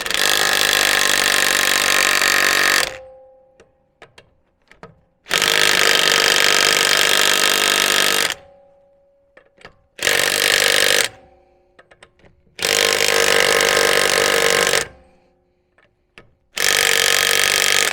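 Impact wrench hammering on a wheel's lug nut in five bursts of one to three seconds, with short pauses between them. The nut does not break loose.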